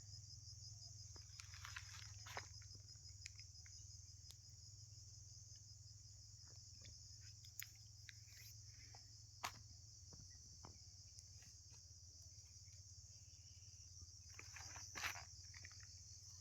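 Faint, steady high-pitched insect trilling, with scattered light clicks and a low steady hum underneath.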